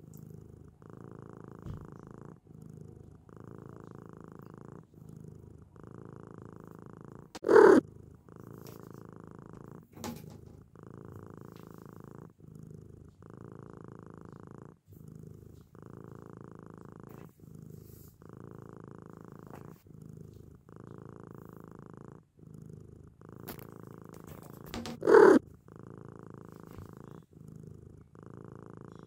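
Cat purring steadily in even, repeating breaths with short gaps between them. Twice, about a quarter of the way in and near the end, a brief much louder sound cuts in.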